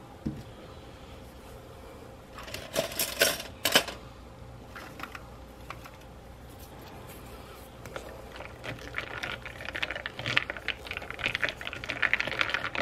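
Ice cubes clinking and rattling against a clear plastic cup as an iced latte is stirred with a straw, a quick busy clatter that builds over the last few seconds. A few separate clinks come earlier, about three seconds in.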